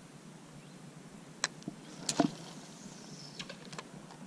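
Spinning rod and reel handled in a cast: a sharp click, then a louder brief swish and rattle, then a few quick clicks from the reel near the end.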